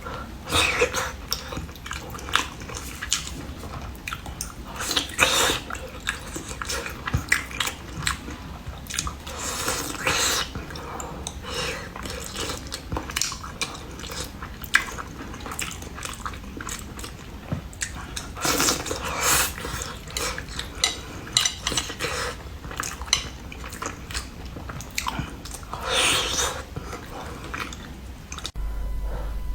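A person biting and chewing seafood: a steady stream of wet clicks and crunches, louder in a few clusters.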